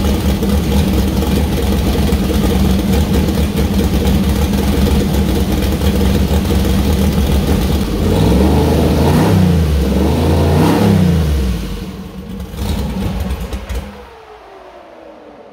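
Freshly built 427-cubic-inch LS V8 with a solid roller camshaft running on its first start-up: it idles, is revved twice, rising and falling, then is shut off near the end with a falling whine as it winds down.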